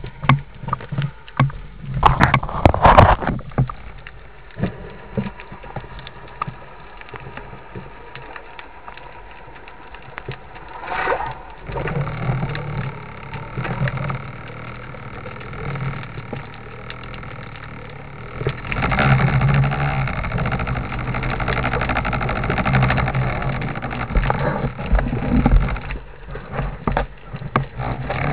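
Underwater recording of a boat engine's steady low hum with overtones, growing louder about two-thirds of the way through. A cluster of sharp knocks sounds about two to three seconds in.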